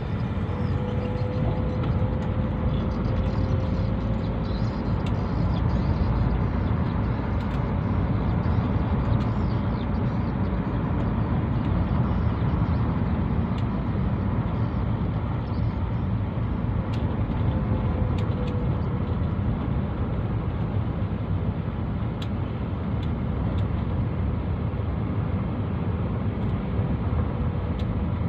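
Steady low rumble of a car's engine and tyres on the road while driving at an even speed, heard from inside the cabin.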